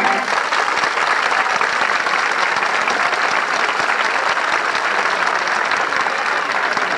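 A large audience applauding, the clapping coming in just as the music stops.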